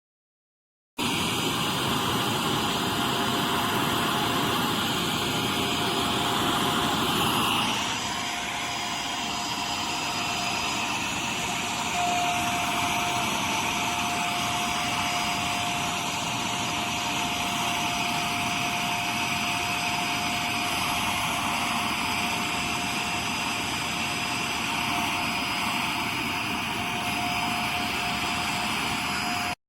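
iwoly V600 corded stick vacuum's motor running with a steady whine and airflow hiss. It switches on abruptly and changes pitch and drops slightly in level about eight seconds in.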